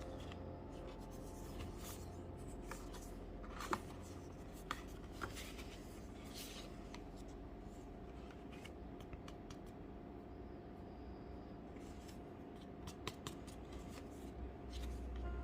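Hands handling unboxing packaging: rustling and scraping with scattered small clicks, one sharper click a little under four seconds in.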